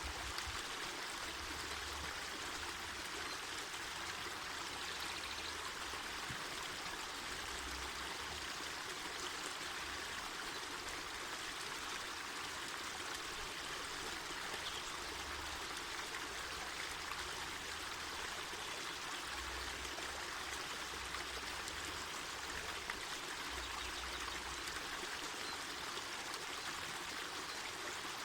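Mountain river running over rocks: a steady rushing of flowing water.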